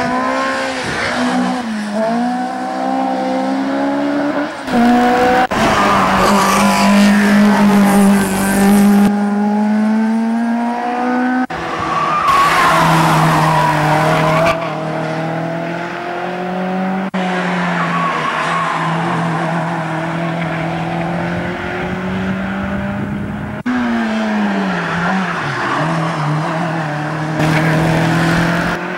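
Racing hatchback engines, among them Renault Clios, revving hard through a hill-climb bend, the pitch climbing and dropping back with each gear change as one car after another passes. The sound jumps abruptly between cars several times.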